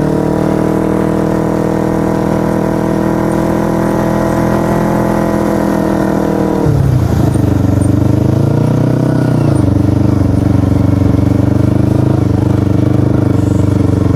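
Kawasaki Ninja 250 parallel-twin engine under way, pulling with its pitch slowly rising. About seven seconds in the pitch drops sharply as it shifts up a gear, then it runs on at a lower, steady pitch.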